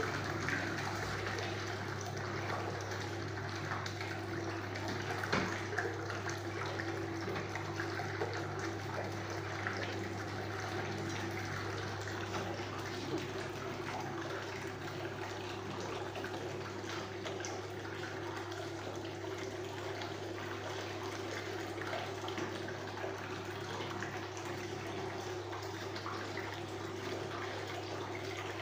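Pedicure spa bowl's whirlpool jet running: water churning and splashing in the basin over a steady low hum.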